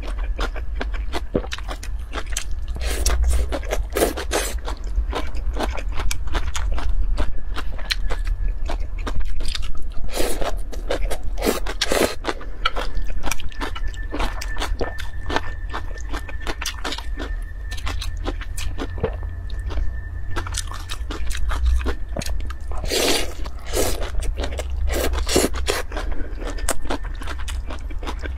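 Close-miked eating of wide, flat noodles in chili sauce: slurping and chewing, with chopsticks clicking and scraping against a glass bowl. A few louder slurps stand out among many small clicks and mouth sounds.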